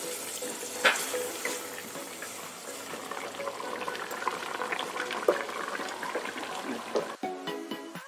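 Chicken pieces in tomato sauce simmering in an aluminium pot, a steady bubbling with small pops and a sharp click about a second in. Electronic music starts near the end.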